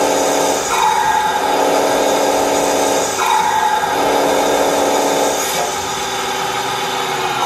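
Electronic sound module of a radio-controlled Scania R770 truck model playing a truck engine sound through its speaker, revved twice from the transmitter stick, each rev trailing off in a falling whine, then settling back to idle near the end.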